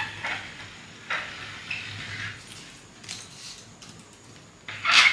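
Tracing wheel run over pattern paper and carbon paper on a table in a handful of short scraping strokes, transferring the pattern lines; the last stroke, near the end, is the loudest.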